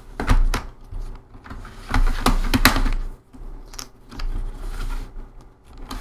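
Plastic snap-fit clips of a laptop's bottom case clicking loose as the case is pried and pulled away from the chassis, with the rubbing and handling of the plastic shell. There are two sharp clicks just after the start and three more about two seconds in.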